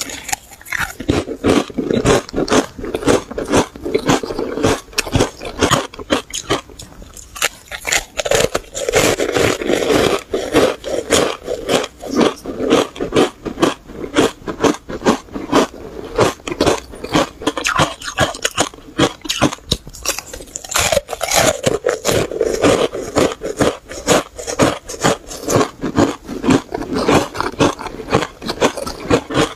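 Close-miked crunching and chewing of ice chunks coated in green powder: a dense, continuous run of sharp, crisp cracks as the ice is bitten and ground between the teeth.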